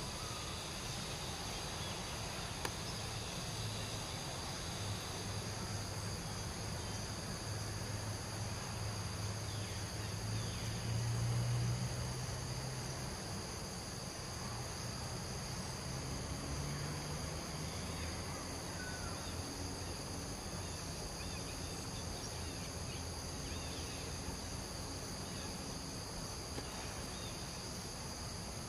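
Steady outdoor insect drone, several high pitches held evenly throughout, over a low hum that swells briefly about eleven seconds in.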